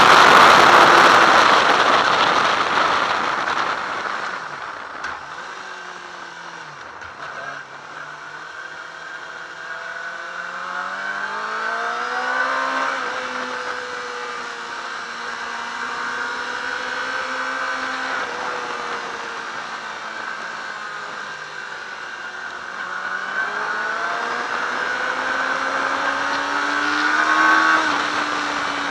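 Yamaha R6 inline-four sport-bike engine heard onboard through a lap section. It is loud at high revs with wind rush at first, then winds down in a few steps. It revs back up through the gears and holds a steady note, then climbs to a peak near the end before easing off.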